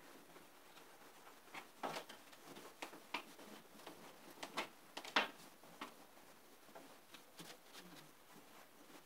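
Faint, irregular clicks and short scratchy scrapes, a few loud ones standing out about two and five seconds in.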